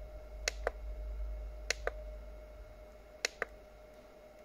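Buttons on a handheld battery tester's keypad pressed three times, each a pair of sharp clicks close together, over a faint steady tone.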